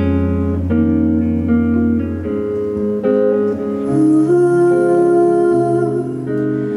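Music: acoustic guitar playing a slow accompaniment of held chords and plucked notes, between sung lines of a slow ballad.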